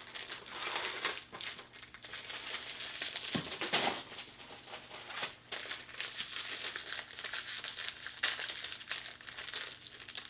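Foil snack packaging for potato chips crinkling and crackling as it is handled and unwrapped. Sharper crackles come a little under four seconds in and again about eight seconds in.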